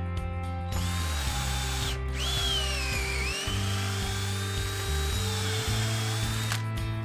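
Cordless drill boring a pocket hole through a Kreg pocket-hole jig into a pine board. It runs from about a second in until near the end, with a short break; its whine drops as the bit bites and then climbs again. Background music with steady bass notes plays throughout.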